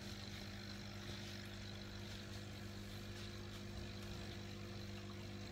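Aquarium air pump humming steadily as it drives an airstone and sponge filter, a low even hum with a faint hiss over it.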